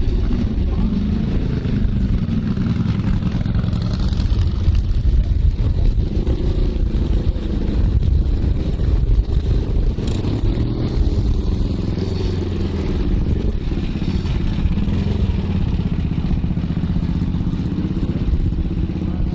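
Britten racing motorcycle's V-twin engine running loudly, its pitch rising and falling with the throttle.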